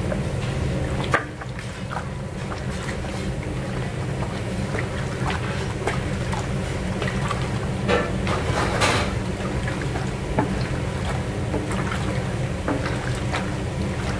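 A wooden paddle stirring a large batch of chicken pieces in a big steel braising pan, with scattered scrapes and knocks against the metal, over a steady low rumble from the kitchen equipment.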